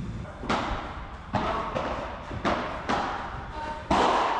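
Padel rally: the ball knocked back and forth by solid padel rackets and bouncing on the court, about six sharp knocks with echoing tails, the loudest near the end.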